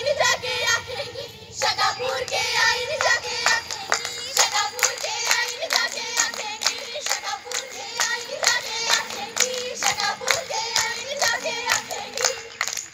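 Rhythmic hand clapping for a Punjabi giddha dance, with voices singing folk verses over it. The claps come fast and steady, about three a second, and everything cuts off suddenly at the end.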